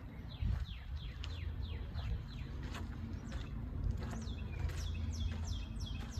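Birds chirping: many quick, downward-sliding chirps repeating throughout, over a low rumble underneath.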